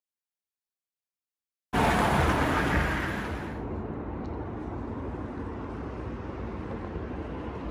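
After a short dead-silent gap, a road vehicle passes close by with a loud rush of tyre and engine noise that fades away within a couple of seconds, leaving a steady low hum of street traffic.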